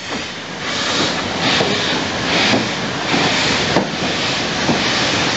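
Steam train running, heard close from the carriage: a string of hissing steam chuffs, roughly one or two a second, over a steady rumble of wheels on rail with occasional sharp clicks.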